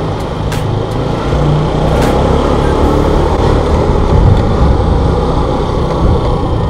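Motor scooter engine running steadily under way, heard from a helmet-mounted action camera with wind and road noise over the microphone. Two sharp clicks come in the first two seconds.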